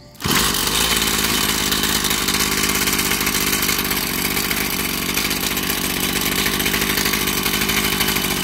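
Mitsubishi TL26 brush cutter's 26cc two-stroke engine running steadily, not revved. It comes in abruptly just after the start.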